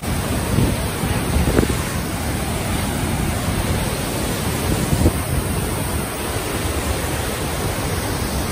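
Steady roar of rushing water from the High Force waterfall, with wind on the microphone. A couple of faint knocks come through it, about a second and a half in and again about five seconds in.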